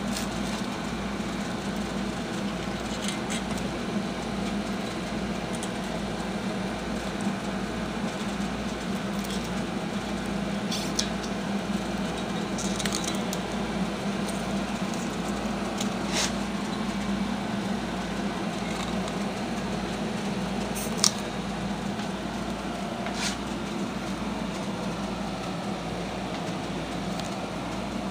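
Handling noise from an electric guitar and its packaging: a few scattered soft clicks and rustles over a steady low hum, with no notes played.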